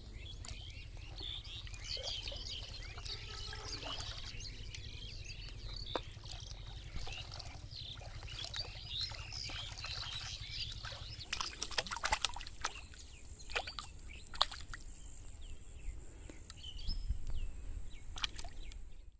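Birds chirping over a steady low rumble, with a faint thin high whine throughout. Water splashes and sloshes from wading in the shallow pond in a cluster about two-thirds of the way through.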